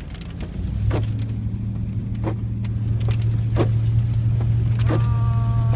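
Inside a car driving in rain: a steady low engine and road drone, with the windshield wipers ticking about once every second and a half and rain on the glass. A faint whine slowly falls in pitch near the end.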